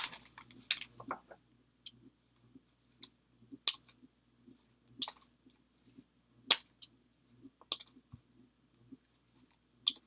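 Scattered light clicks and taps, about one a second, from small paper flowers being handled and tucked into place on a scrapbook page.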